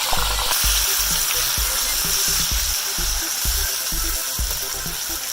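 Red curry paste frying in hot clarified butter in a pan, an even sizzle, under background music with a steady bass beat.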